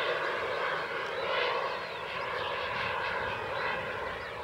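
Small gas turbine of a radio-controlled Vampire model jet in flight, heard at a distance as a steady whooshing whine.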